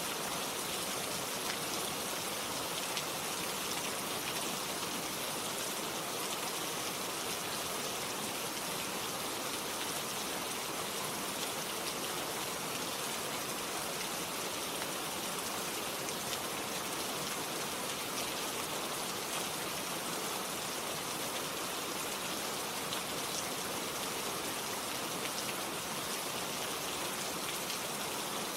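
Steady rain falling, an even hiss of drops with faint scattered pattering, unchanging in strength.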